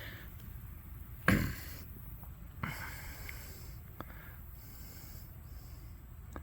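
A cat snorting: one sharp, loud blast of breath about a second in and a weaker one about a second and a half later, with a couple of faint clicks afterwards.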